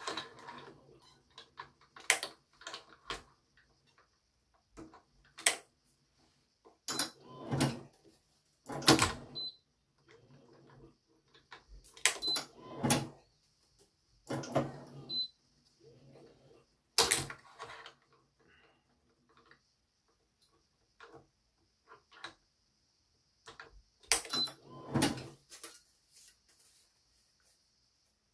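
Irregular sharp knocks, clacks and clicks, some with a short ring, from handling a badminton racket and stringing-machine parts as stringing work begins, over a faint steady hiss.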